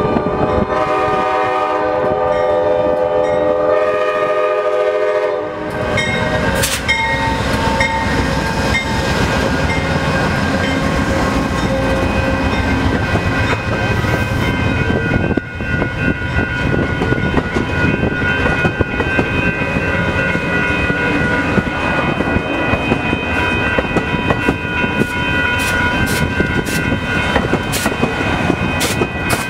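Amtrak diesel locomotive's horn sounding a chord, which stops about five and a half seconds in. The train of bilevel Superliner passenger cars then rolls past close by, its wheels clattering over the rail joints.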